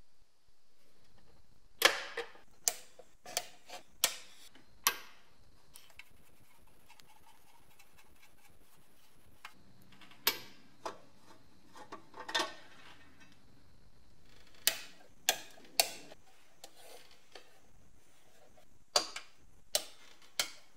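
Sharp metal clicks and clinks from a screwdriver working the rusty screws out of the painted sheet-metal housing of 1930s Kitway kitchen scales. They come as scattered single clicks in short clusters, about a dozen and a half in all.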